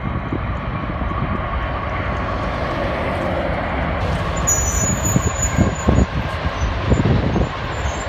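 Union Pacific freight train passing: diesel locomotives running by, then autorack cars rolling on the rails, a steady loud rumble and rush. A thin high squeal comes in about halfway through.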